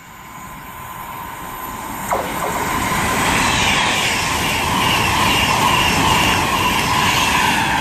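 Class 390 Pendolino electric train passing through the station at speed. Its noise builds over the first few seconds into a steady loud rush of wheels on rail.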